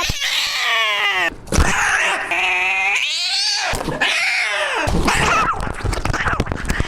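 A cat screaming in long, drawn-out yowls with a wavering pitch, one cry after another. The last few seconds are rougher, with noisy crackle and low thuds under the cries.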